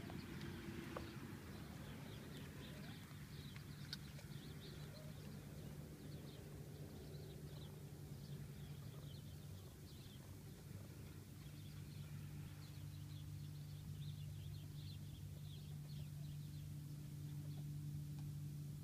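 Quiet rural outdoor ambience: a steady low hum, with faint, quick high chirps of small birds scattered through most of it.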